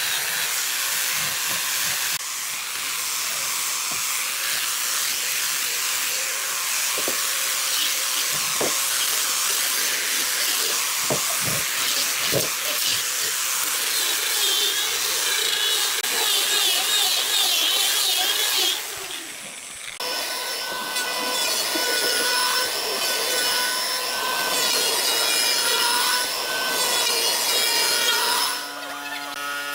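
Handheld electric sander with a hook-and-loop pad running over pine boards, a dense steady hiss that changes slightly between cuts. About two-thirds of the way through it breaks off and a power tool's motor takes over with a steady high whine.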